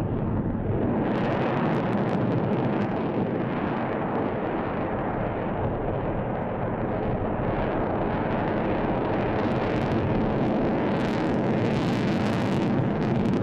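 Jet roar of an F-22 Raptor's twin Pratt & Whitney F119 turbofans as it manoeuvres overhead: a steady rumbling roar, with sharper crackle in the last few seconds.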